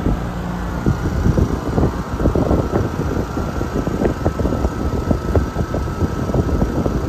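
Air-conditioner condensing unit running: its Copeland scroll compressor and condenser fan, with a faint steady whine, and the fan's discharge air buffeting the microphone in irregular gusts from about a second in.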